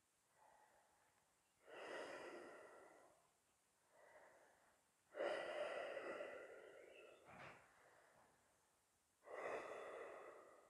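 A person breathing slowly and audibly while holding a seated yoga balance: three long breaths, each lasting about two seconds, with a fainter one between the first two. There is a short click about seven seconds in.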